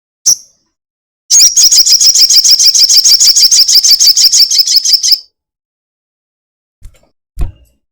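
Sogon (sogok ontong, a spiderhunter) giving one short chirp, then a long, rapid chattering trill of about eight notes a second that lasts about four seconds. Two soft low knocks come near the end.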